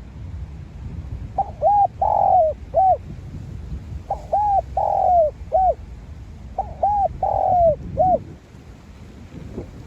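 Spotted dove cooing: three phrases of four short notes each, about two and a half seconds apart, over a steady low rumble.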